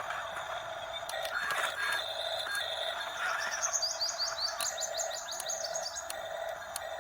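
A small bird chirping in a rapid trill of short high notes for about three seconds in the middle, over a steady tone and scattered sharp clicks.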